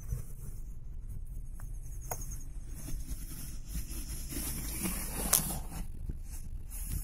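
Steady low rumble of a moving car heard inside its cabin: road and engine noise, with a few light clicks and knocks scattered through it, the sharpest a little over five seconds in.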